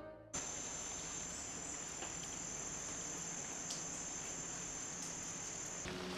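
Rainforest insects keeping up one steady, high-pitched buzz. It cuts off shortly before the end, when a low steady hum comes in.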